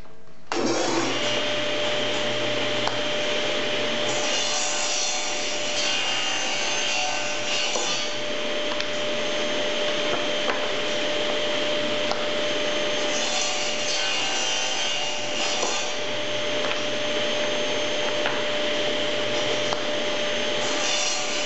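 Table saw running steadily while its blade crosscuts walnut stock on a segment-cutting sled. The sound brightens and grows harsher several times as the blade passes through the wood.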